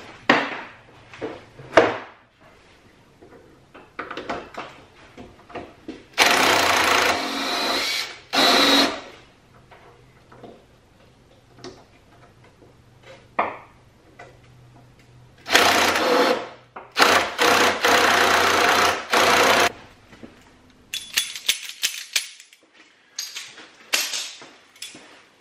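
Cordless impact wrench hammering in four bursts of one to two and a half seconds, each cutting off sharply, with light clicks and rattles between them. It is working on strut top-mount bolts whose captive nuts have come loose, and the bolts do not come free.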